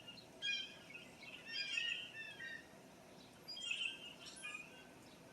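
Blue jays calling in three clusters of calls a second or two apart, over faint outdoor background noise. These are agitated calls of the kind jays give when a hawk, owl or eagle is nearby.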